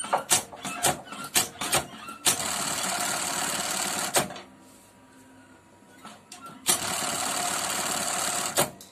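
Juki MB-1377 single-thread chainstitch button-sewing machine: a quick string of sharp clicks, then two runs of stitching of about two seconds each, a couple of seconds apart, each ending with a click.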